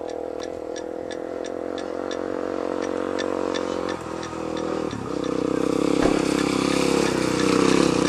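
A motor vehicle's engine running steadily, with a regular ticking about twice a second over it for the first few seconds; from about five seconds in the engine is louder.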